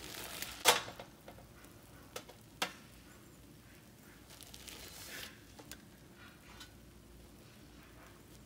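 Sticky marshmallow-coated chocolate cereal being scooped with a spoon and dropped into a metal baking pan: rustling scrapes as the mix is worked loose, and a few sharp knocks of the spoon, the loudest about a second in.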